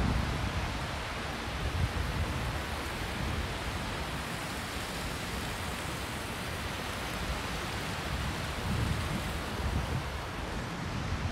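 Steady rushing of a fast-flowing river, with a few gusts of wind buffeting the microphone.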